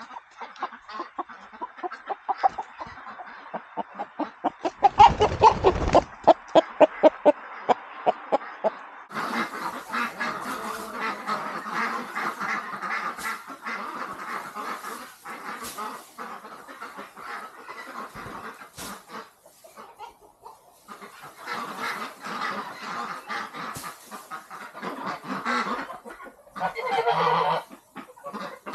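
A flock of domestic geese and ducks calling, with geese honking and ducks quacking. A fast run of calls comes about five to eight seconds in, then a continuous chorus of many overlapping calls.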